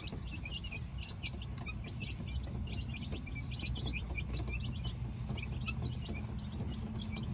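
A flock of young chicks peeping: many short, high chirps scattered irregularly, over a steady low hum.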